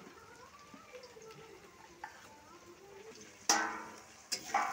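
After about three seconds of quiet, diced potatoes and onions frying in mustard oil in a kadai break into a loud sizzle about three and a half seconds in. A second burst near the end is the food being stirred with a spatula in the pan.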